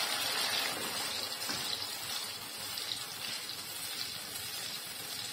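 Tomato gravy and oil sizzling in a frying pan as cashew-onion paste is poured in and stirred; the sizzle eases after a second or two.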